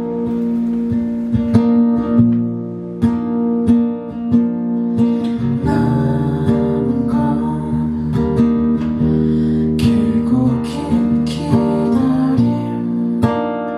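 Acoustic guitar strummed and picked, playing an instrumental passage of a song.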